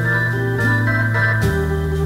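Instrumental music led by sustained organ chords that change every half second or so, with a brief percussive hit about one and a half seconds in.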